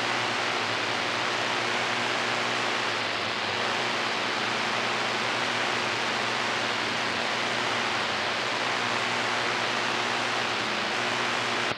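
Steady hiss of an open CB radio channel through the receiver's speaker, with the noise limiter and noise blanker switched off, and a faint low hum underneath; no station comes through clearly.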